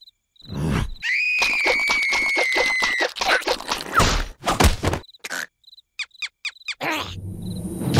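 Cartoon larva character vocalising: a long, high-pitched quavering cry held for about two seconds, followed by short squeaky vocal sounds and small taps. A noisy rushing sound effect starts near the end.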